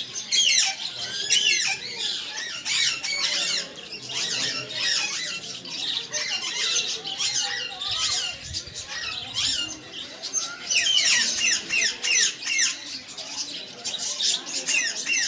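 A flock of parrots squawking and chattering, many short, overlapping calls at once.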